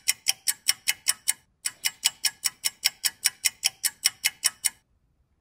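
Toy remote-control McLaren's electronic turn-indicator ticking fast and evenly, about five ticks a second. It breaks off for a moment about a second and a half in, starts again, and stops near the end.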